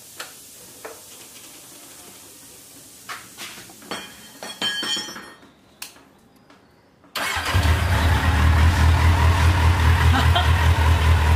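A few clicks of the key and switches, then about seven seconds in a superbike's inline-four engine, its exhaust just refitted, starts and settles into a steady idle.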